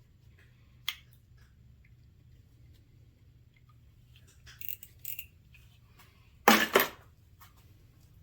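Hand-tool work on the small engine's fuel line: scattered light clicks and a couple of short scraping rustles, then two sharp, loud clacks in quick succession about six and a half seconds in.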